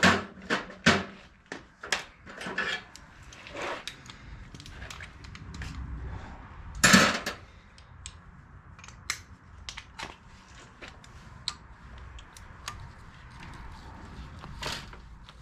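Hand tools working on metal engine parts: irregular clicks, scrapes and clinks, with one louder metal clank about seven seconds in.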